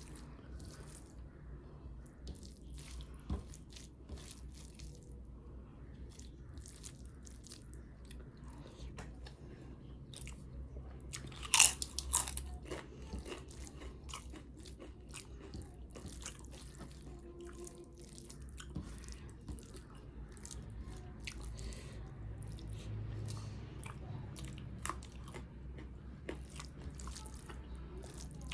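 Close-miked mukbang eating: steady chewing and smacking of rice and kadhi, with crisp crunches of papad. The loudest is one sharp crunch a little under halfway through.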